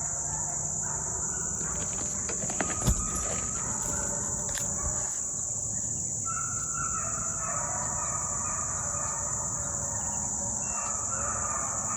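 Pack of deer hounds baying in the distance while running a deer hard, their drawn-out cries overlapping and building through the second half, over a steady high-pitched drone of crickets. Two short knocks come close together about two and a half seconds in.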